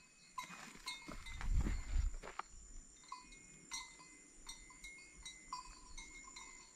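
Night outdoors: a steady high insect trill. Rustling and handling noise fill the first couple of seconds, then short chirping calls repeat about once or twice a second.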